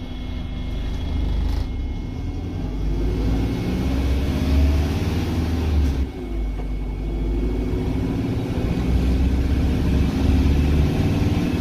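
City bus engine and drivetrain heard from inside the passenger saloon while the bus drives along, over a steady low rumble. The engine note climbs, dips briefly about six seconds in, then climbs again.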